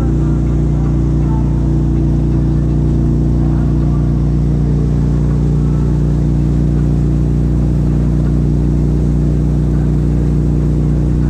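Wake boat's engine running at a constant speed, a steady low drone that holds the same pitch throughout, over the rush of the churning wake.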